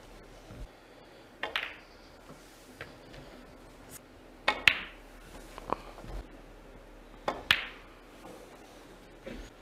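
Snooker balls clicking as shots are played. There are sharp clicks, some in quick pairs, about a second and a half in, again near the middle and once more later on, with fainter knocks between them.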